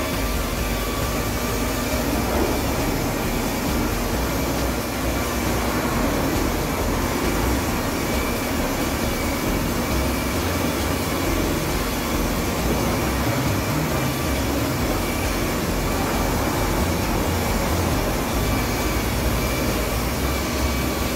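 Handheld electric rotary polisher running steadily with its round pad buffing car paint: a constant motor whine over the rushing of the pad.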